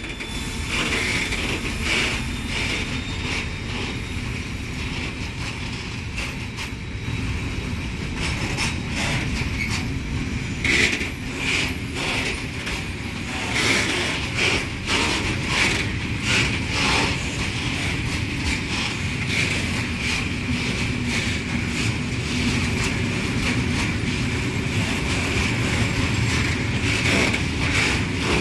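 Long rake of Eaos open freight wagons rolling past at close range: a steady rumble of wheels on the rails with a thin, high squeal from the wheels. A run of sharp clacks and clicks comes through about a third of the way in, thickest around the middle.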